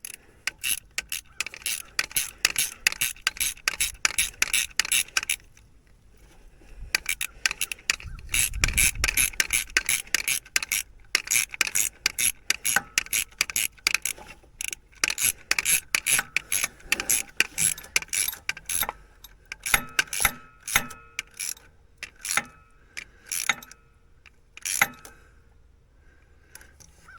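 Rapid ratcheting clicks in long runs, with a short break about five seconds in, thinning to scattered clicks over the last several seconds.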